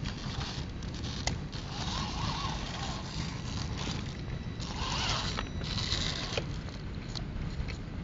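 Radio-controlled Axial SCX10 scale crawler's electric motor and gears whining in two bursts, about two seconds in and again about five seconds in, as it climbs over rock with its tyres scrabbling, with a few sharp clicks and a steady low rumble underneath.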